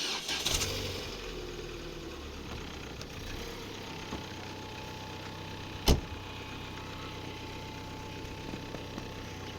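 An engine running steadily, starting abruptly at the opening, with one sharp knock about six seconds in.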